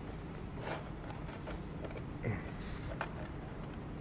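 Small plastic clicks and light scraping as the toy blaster's battery, converter plug and wiring are handled at the opened rear compartment, with a few scattered ticks and a short scrape about two seconds in.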